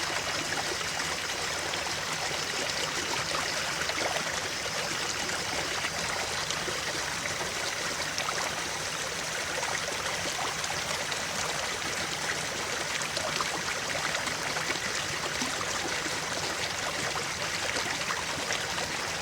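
Flowing water running steadily and unbroken.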